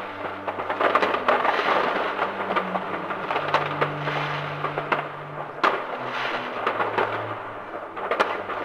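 Massed New Year's fireworks going off all over town: a dense, continuous crackling rumble of distant rockets and firecrackers, with sharper bangs standing out, a loud one about halfway through and more near the end.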